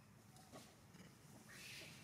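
Near silence: faint background hum with a couple of soft ticks and a brief soft rustle near the end.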